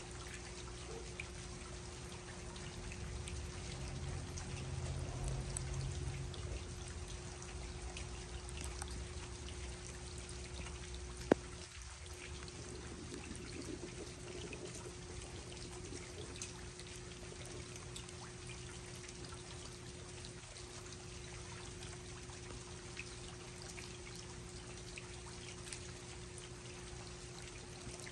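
Steady rain: drops pattering and water trickling, over a faint steady hum. A low rumble swells and fades about four to seven seconds in, and a single sharp click sounds about eleven seconds in.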